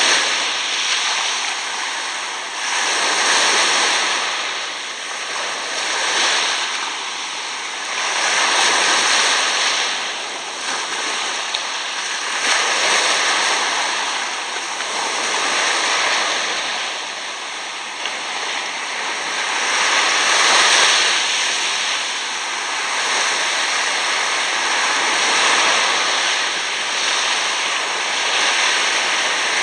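Shallow sea water washing in and out over coarse sand at the shoreline: a hissing wash that swells and eases every few seconds.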